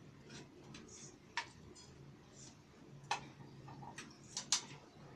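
Irregular sharp clicks and light taps from computer parts being handled and fitted into a desktop PC during reassembly, loudest about three seconds in and twice in quick succession near the end, over a faint steady low hum.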